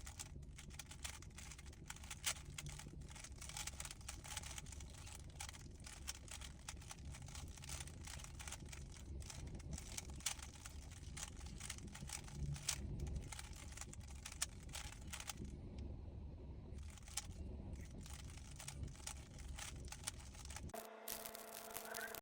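Plastic Rubik's cube being turned rapidly by hand: a faint, dense run of small clicks and clacks as the layers snap round. A short tonal sound comes in near the end.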